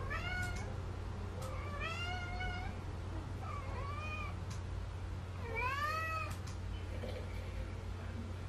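A Munchkin Napoleon cat meowing four times, each call rising and then falling in pitch, the last one the loudest: begging for a treat.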